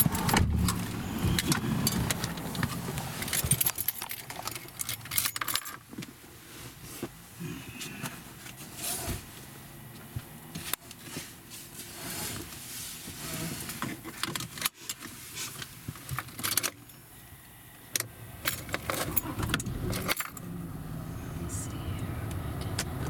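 Interior rattling and clicking inside a moving car's cabin: irregular sharp clicks and crackles over a low road and engine rumble, the rumble stronger in the first few seconds and again near the end.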